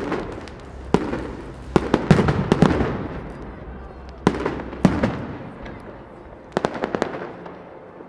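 Aerial firework shells bursting in a large display, each bang echoing. A sharp bang at the start is followed by a run of bangs over the next three seconds, two more around four and five seconds in, and a quick rattle of smaller cracks near seven seconds.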